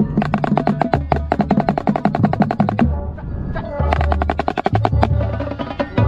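Marching snare drum played in fast runs of stick strokes close to the headcam, with the rest of the drumline and low sustained bass notes underneath. The strokes thin out briefly about halfway through, then pick up again.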